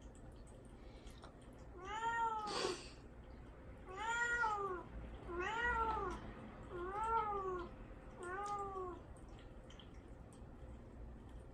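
A caged young cat meowing five times in a row, each meow rising then falling in pitch, with about a second and a half between them. The cries are a plea to be let out: he is shut in the cage and kept from food and water before his neutering.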